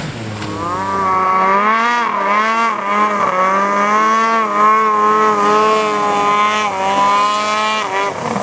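Ski-Doo MX Z snowmobile's two-stroke twin engine running at high revs as the sled skims across open water. The pitch climbs over the first second or two, then holds nearly steady with small wobbles, and cuts off abruptly near the end.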